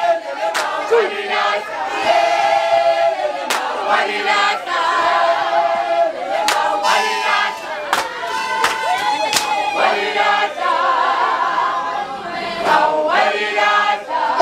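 Group of women singing a traditional Zulu song together in chorus, with a few sharp hand claps.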